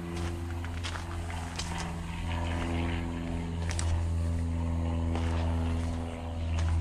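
Motorcycle engine running at low, fairly steady revs, its pitch shifting a little and growing slightly louder about four seconds in.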